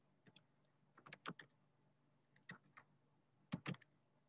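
Faint clicks of a computer keyboard being typed on, a few keys at a time in short irregular clusters with pauses between them.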